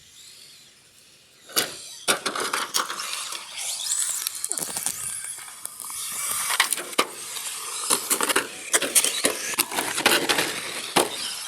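Radio-controlled cars racing on a track: a loud, high-pitched run of tyre squeal and motor noise broken by many sharp clicks and knocks, starting about a second and a half in.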